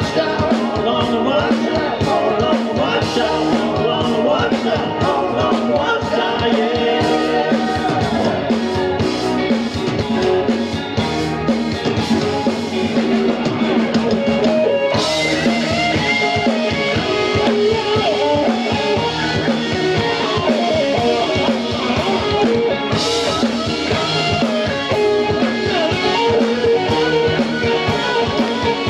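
Live rock band playing through a stage sound system: electric guitar, drum kit and keyboards. Two cymbal crashes ring out, one about halfway through and another later on.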